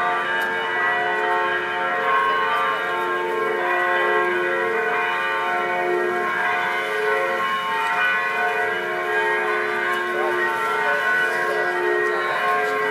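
Several church bells ringing, struck one after another so that their long tones overlap.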